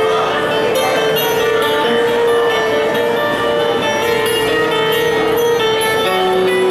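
Fado instrumental introduction on plucked strings: Portuguese guitar with guitar accompaniment, playing a melody over a recurring held note.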